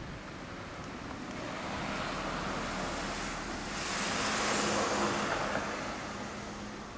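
Kawasaki Z1's air-cooled inline-four idling through a BEET exhaust, a steady low hum. A broad rushing noise swells about three and a half seconds in and fades toward the end.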